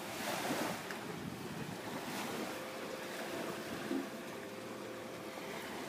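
Wind blowing over the microphone while the strings of an aeolian wind harp, set sounding by the wind, hum faint steady tones.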